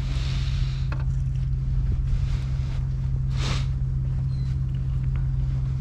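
Wind buffeting the microphone: a steady low rumble over a constant low hum, with no clear event standing out.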